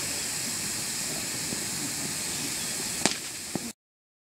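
Pyrotechnic waterfall (a line of hanging spark fountains) burning with a steady high hiss, broken by a few sharp cracks, the loudest just after three seconds in. The sound then cuts off suddenly.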